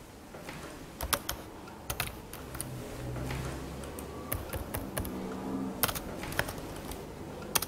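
Typing on a computer keyboard: irregular, scattered key clicks, some sharper and louder than others.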